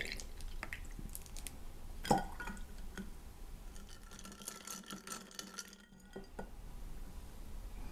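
Glassware, ice and metal barware clinking and tapping while a Campari and orange juice cocktail is built and stirred in a glass. One sharp clink about two seconds in is the loudest, followed by a run of light clicks and taps.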